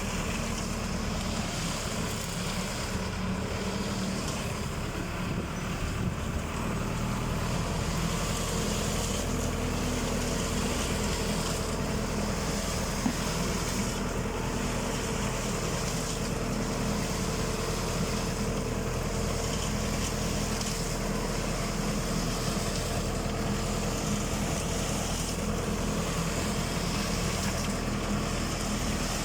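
Tractor engine running steadily under load, powering a transit concrete mixer through its PTO, with a slight rise in level about seven seconds in.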